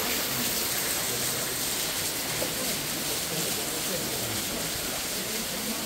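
Steady hiss of water running and trickling over stones into a garden fish pond, with faint voices of people in the background.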